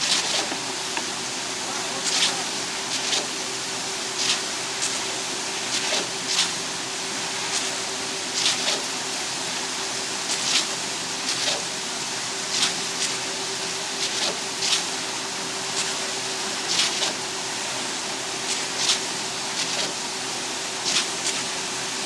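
Concrete pump running with a steady hum, with a short hissing knock about every two seconds as it cycles its pumping strokes.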